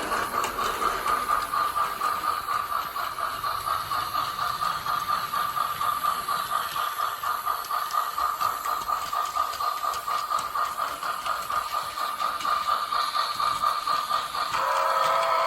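Plarail C62 sound car's electronic steam-locomotive chuffing effect: rapid, even chuffs, several a second, played as the toy train rolls. About a second before the end a steady tone joins in.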